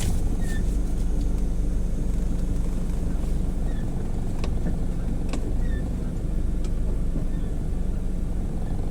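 Car running, heard from inside the cabin: a steady low engine and road hum, with a few faint short chirps over it.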